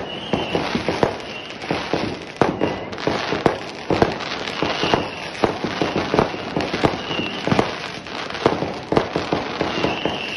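Aerial fireworks going off across the neighbourhood: a dense, irregular run of bangs and crackles, several a second, with no let-up.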